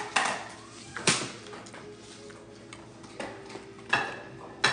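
Spoon knocking and scraping in a bowl of porridge: a few sharp clinks, spaced a second or more apart.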